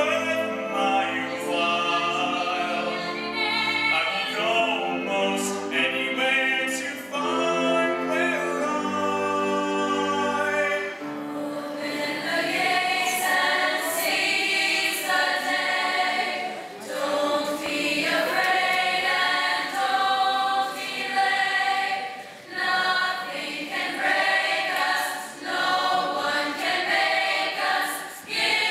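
A large student choir singing with a school orchestra of strings, saxophones and trumpets. About eleven seconds in, the held chords give way to a new song with busier, faster singing.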